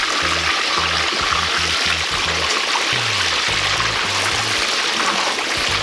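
Whole carp deep-frying in hot vegetable oil in a cast-iron kazan: a steady, dense sizzle and bubbling of the oil. Background music with a stepping bass line plays underneath.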